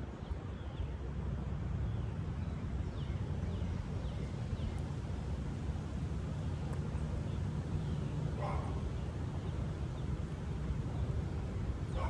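Woodland ambience: a steady low rumble under faint, scattered bird chirps, with one somewhat louder call about eight and a half seconds in.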